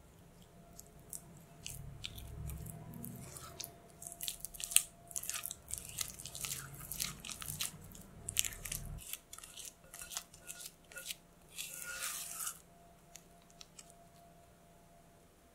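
Silicone spatula mixing an egg yolk into creamed butter in a glass bowl, making a quick run of short scrapes and wet clicks against the glass. A low rumble runs under the first half, and the mixing stops a few seconds before the end.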